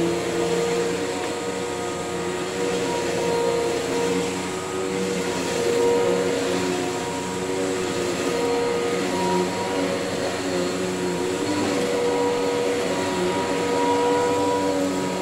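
Tornado CK14/1 commercial upright vacuum cleaner running as it is pushed across carpet: a steady motor drone with a whine made of several steady tones.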